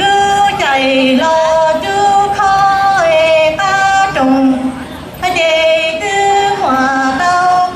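A young woman singing solo into a microphone, unaccompanied, holding long steady notes that step from one pitch to the next with short slides into each, with a brief break about halfway through.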